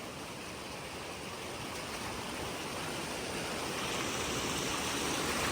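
Rain-swollen mountain river rushing: a steady wash of water noise that grows gradually louder.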